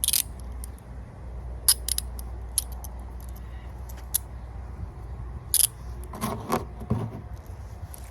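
Metal handcuffs clicking and rattling as a bobby pin is worked into the lock: sharp single clicks every second or two, then a quicker flurry of clicks and rattling about six seconds in.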